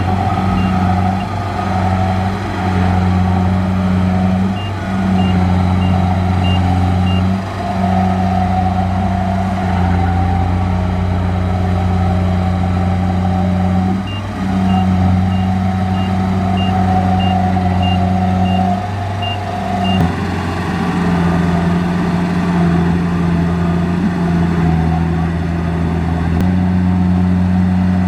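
Kubota DC-70 combine harvester's diesel engine running under working load, its pitch and load shifting now and then. A high reversing beeper sounds in runs of short beeps about two a second, several times.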